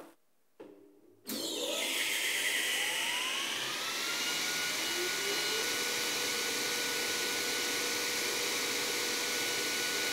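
Sliding table panel saw starting up about a second in: its motor and blade run up to speed with a rising whine over a rushing of air, then settle into a steady whine at full speed, not yet cutting.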